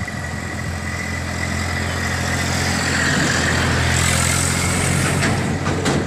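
Motor vehicle engine running nearby, a steady low drone that grows louder over the first three or four seconds.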